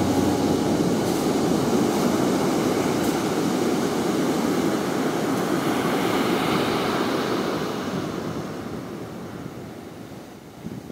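Ocean surf washing onto a sandy beach, a steady rush that fades out over the last few seconds.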